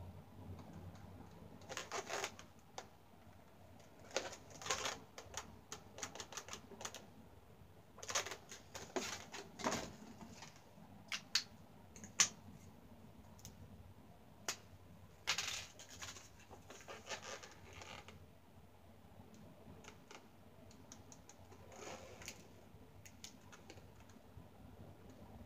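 Scattered bursts of small clicks and taps with brief scratchy rubs: handling noise as a latex balloon doll and marker pens are picked up, set down and worked with.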